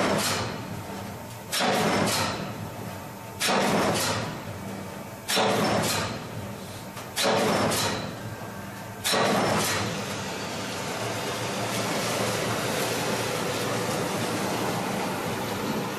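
CNC punching machine punching holes in steel sheet: a sharp double bang about every two seconds, five strokes in all. The strokes stop about nine seconds in, leaving the machine running with a steady noise.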